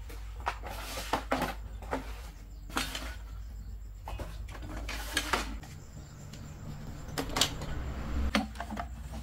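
Irregular clanks and knocks of scrap metal parts being handled and moved about, about ten separate strikes spread unevenly, over a low steady hum.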